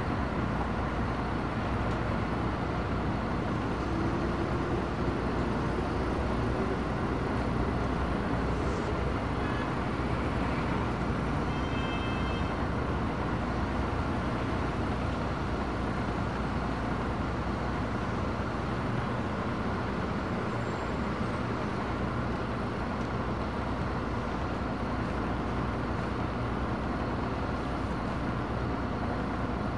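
Steady engine rumble and road noise of a moving city bus, with a faint rising whine a few seconds in.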